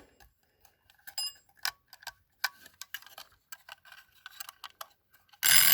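Scattered light metallic clicks from the mechanism of a Scotsguard spring-wound fire alarm bell as it is handled. Near the end the bell is set off and starts ringing continuously, much louder than the clicks.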